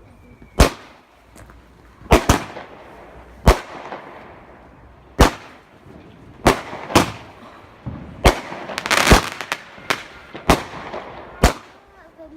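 Fireworks going off: about a dozen sharp bangs at uneven intervals, each trailing off in an echo, with a burst of crackling about nine seconds in.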